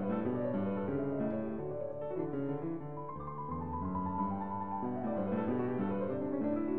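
Background piano music, a steady flow of changing notes.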